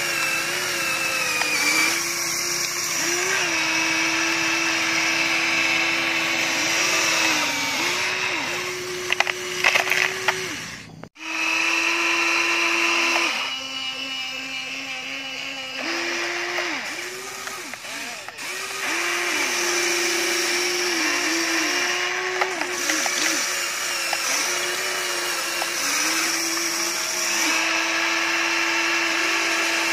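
Remote-control toy excavator's electric motors whining steadily as the arm and bucket work, the pitch dipping briefly each time a motor starts or takes load. A few sharp clatters come near ten seconds in, and the sound cuts out for a moment at about eleven seconds.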